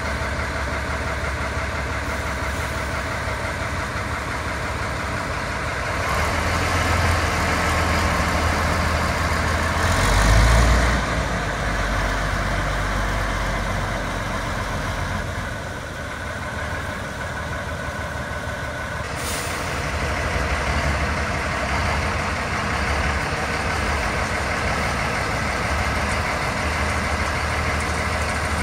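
ZIL-157 six-wheel truck's straight-six petrol engine running as the truck drives off and manoeuvres, louder for a stretch about a third of the way in. A brief hiss of air, like an air-brake release, about two-thirds through.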